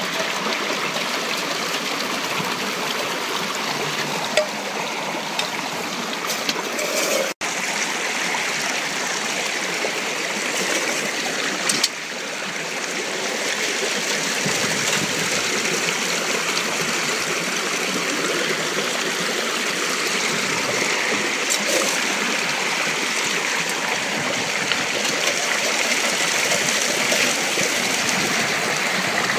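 Shallow stream water flowing steadily through and around a gold sluice set in the current, with a couple of brief knocks.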